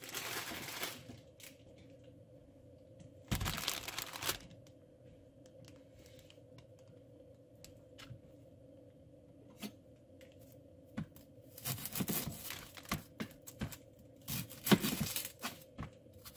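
Plastic produce packaging crinkled and torn in several short bursts, with small clicks and taps between.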